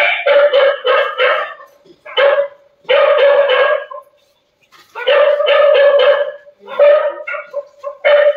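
A dog barking in quick runs of short, loud barks, with a break of about a second around four seconds in.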